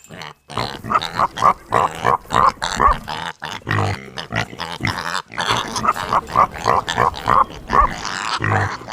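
A pig grunting in quick, repeated short calls, several a second, in clusters.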